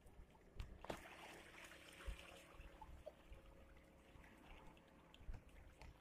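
Near silence: faint shoreline ambience with a few soft knocks and a brief faint hiss about a second in.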